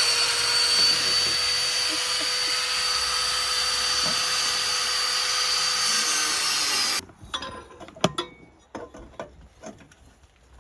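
Angle grinder grinding metal: a steady high whine over a loud, hissing grind, shut off about seven seconds in and winding down. A few light clicks and knocks follow.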